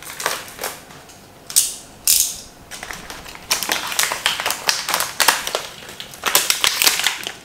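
Utility knife's blade slider clicking, a rapid run of ratchet clicks as the blade is pushed out and drawn back, after two short hisses near the start.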